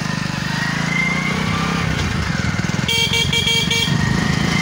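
A vehicle's engine running at low speed, with a horn beeping four times in quick succession about three seconds in.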